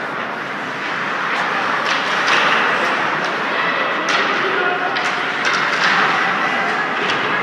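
Ice hockey play in an echoing rink: skate blades hissing and scraping on the ice, with several sharp knocks of sticks and puck, and distant shouting voices.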